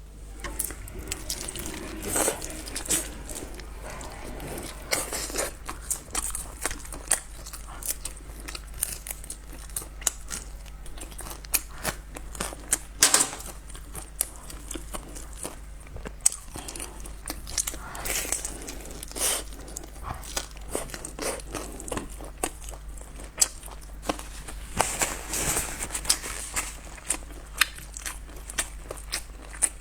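Close-miked eating of spicy noodles: irregular wet clicks of biting and chewing, with bursts of crinkling and crunching now and then.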